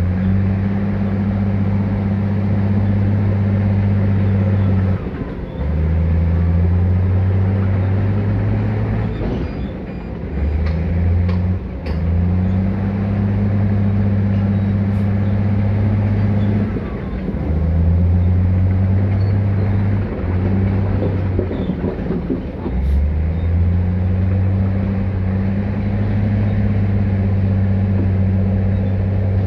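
Large diesel engine of heavy earthmoving equipment running hard, its pitch dropping and picking back up every few seconds.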